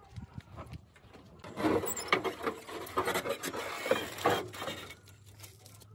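Dry branches and debris being dragged and shifted inside an abandoned car: irregular rustling and scraping with scattered sharp clicks and snaps, busiest in the middle.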